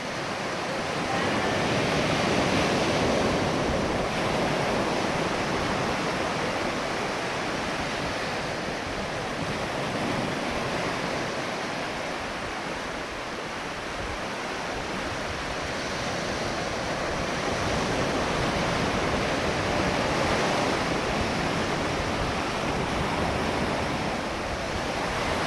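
Ocean surf washing onto a beach: a steady hiss of breaking water that swells and eases every several seconds.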